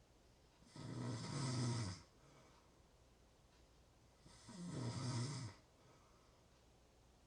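A person snoring: two rough snores, each just over a second long, about three and a half seconds apart, with quiet between them.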